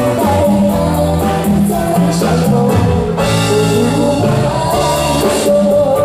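Live band music with steady bass and drums, with a young woman singing over it into a microphone through the stage PA.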